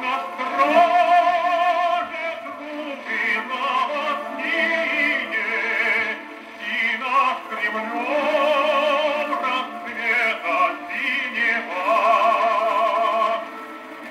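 Restored 1938 portable wind-up gramophone playing a record of operatic singing through its acoustic soundbox. The voice wavers with vibrato, the sound is thin with no deep bass, and there are short pauses between phrases.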